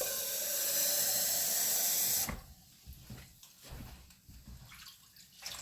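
Kitchen tap running for about two seconds, then shut off suddenly, as water is drawn to add to the cooking; a few faint knocks follow.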